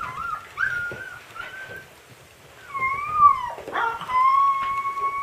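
Husky puppy howling: a few short whines in the first two seconds, then a rising-and-falling howl about three seconds in, and a long, steady howl from about four seconds in.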